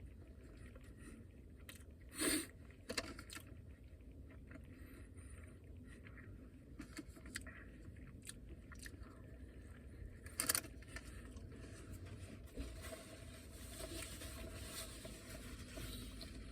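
A man biting into and chewing a beef brisket sandwich, with faint handling noises and small clicks. Two sharper clicks stand out, about two seconds in and about ten seconds in, over a low steady rumble.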